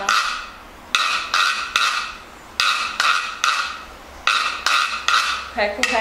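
Bamboo reco-reco scraped with a stick in a steady rhythm: three quick scrapes, a pause, and again, three times over. A woman's voice starts near the end.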